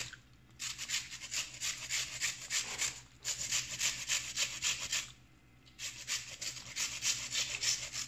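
Onion being grated on a hand grater: quick, rhythmic rasping strokes, about four a second, in three runs with short pauses between them.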